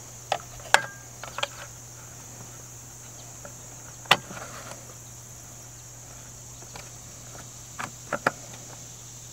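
Scattered sharp clicks and ticks of a hand hex driver and M4 screw against a LUBA robotic mower's blade disc as the screw is started by hand into soft metal threads, the loudest a little after four seconds and a quick cluster near the end. A steady high insect drone runs underneath.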